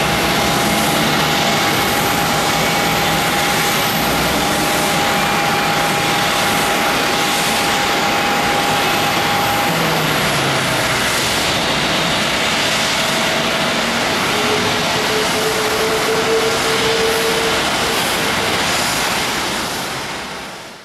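Jet engine noise from a landing Airbus A380, a steady, loud rush with faint steady tones. The tones change about halfway through, around touchdown, and the sound fades out at the end.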